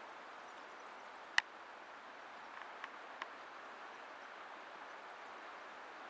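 Steady rush of the Köprüçay river flowing strongly with its winter flow, with one sharp click about a second and a half in and two faint ticks a little later.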